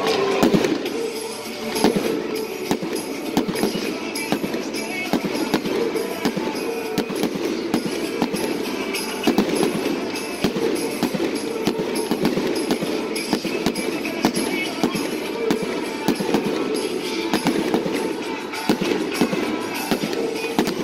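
Fireworks display going off in a rapid string of bangs and crackles, many sharp reports a second with no pause, over music playing in the background.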